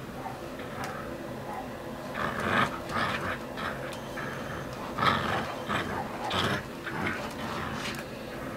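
Husky puppy growling in play while tugging a toy, with louder bursts about two, five and six and a half seconds in.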